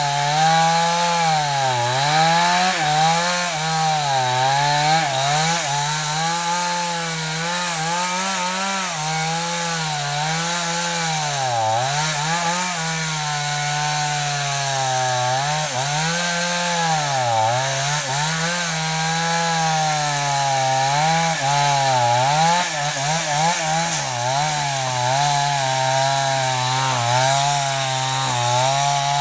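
Two-stroke chainsaw running while cutting wood, its engine pitch repeatedly dropping as it bogs under load in the cut and rising again as it recovers.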